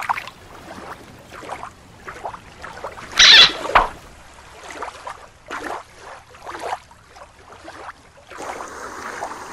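Shallow water sloshing and splashing as a hand lets a small plastic toy hammerhead shark go in it, with one louder splash a little over three seconds in. Near the end a steady rushing noise takes over.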